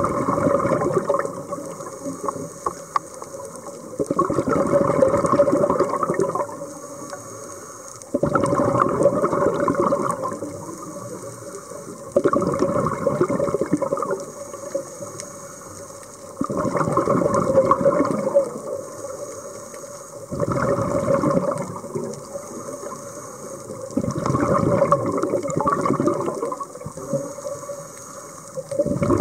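Scuba diver breathing underwater through a regulator: a gurgling rush of exhaust bubbles about every four seconds, each lasting two to three seconds, with quieter gaps for the inhale between them.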